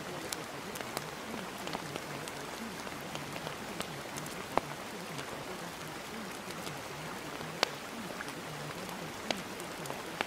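Steady rain patter with scattered sharper drop clicks, two of them standing out. A faint, wavering voice murmur sits low beneath it.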